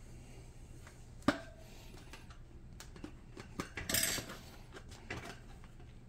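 Metal tire irons clinking and knocking against a dirt bike wheel rim as the tire bead is levered on: one sharp knock about a second in, then a jangly metallic clink near the middle and a few light taps.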